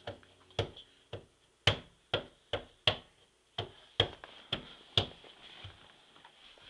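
A toddler knocking on a closed door with her open hand, about a dozen uneven slaps at roughly two a second, thinning out after about five seconds.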